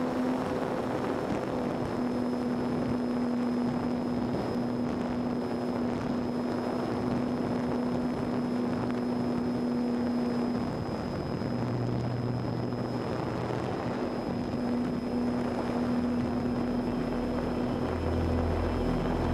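Brushless electric motor and propeller of an E-flite Apprentice S15e RC plane running at a steady pitch, heard from a camera strapped to the airframe, with wind rushing over the microphone. The motor note eases off briefly about halfway through, then comes back.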